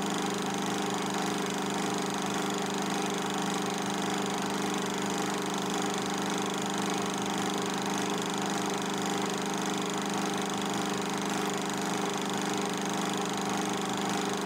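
Film projector running: a steady mechanical hum with a fast, even flutter from the film mechanism underneath.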